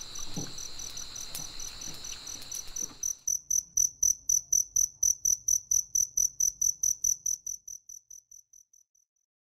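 Evening insect chorus of crickets, a steady high trill with chirping over it. About three seconds in it gives way to a single cricket chirping loud and evenly, about five chirps a second, which fades out near the end.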